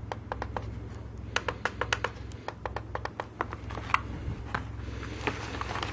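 Tactile push-button switches in a steamer's plastic control panel being pressed over and over, a quick series of sharp clicks over a steady low hum. Near the end come louder clicks and knocks as the plastic housing is lifted off its base.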